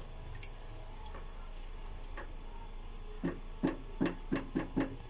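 Six quick knocks of a spatula against a cooking pot of dal in the second half, each with a short ring, over a steady low hum.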